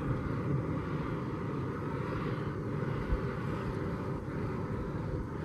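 Wind buffeting the microphone in open desert: a steady low rumble that flutters unevenly.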